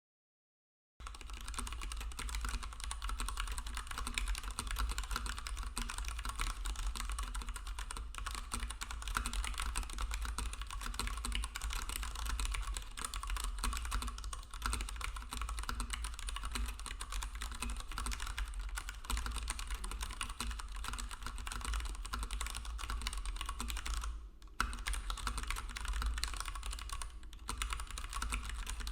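Leopold FC660M BT mechanical keyboard with brown tactile switches being typed on fast and continuously, a dense stream of key clacks. The typing starts about a second in and pauses briefly twice near the end.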